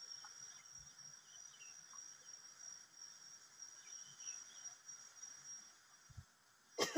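An insect trilling steadily on one high note, with a few faint chirps around it. A brief loud sound breaks in just before the end.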